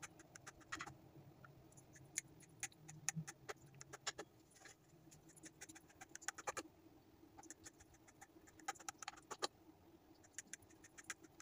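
Knife cutting through firm set carrot halwa in a glass baking dish: faint, irregular clicks and light scraping as the blade is drawn through and touches the glass.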